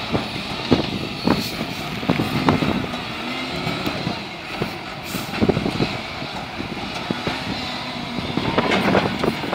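Heli ZL35E wheel loader's diesel engine working under load as the bucket pushes through brush, with branches repeatedly cracking and snapping.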